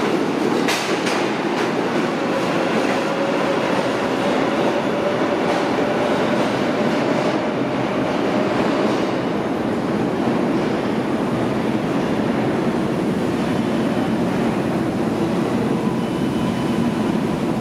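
R142A subway train running through the station on the center track without stopping: wheels click over rail joints about a second in, then a steady loud rumble carries on as it heads into the tunnel.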